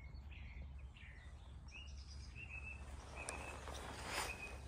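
Garden birds chirping faintly: several short, high notes spread over a few seconds above a quiet, low outdoor background, with a brief rustle about four seconds in.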